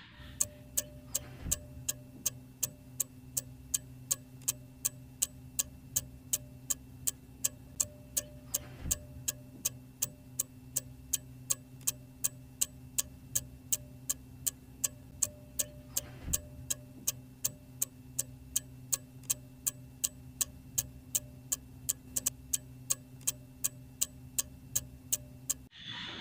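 Clock ticking evenly, about two ticks a second, over a low steady hum.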